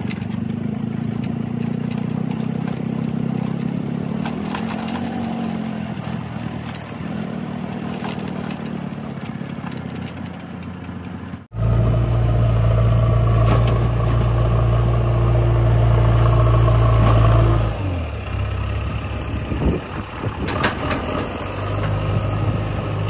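JCB 3DX backhoe loader's diesel engine working under load as its front loader bucket pushes and levels loose earth. It is distant at first, then suddenly much louder and closer about halfway through, where the engine note holds steady, drops a few seconds later and rises again near the end.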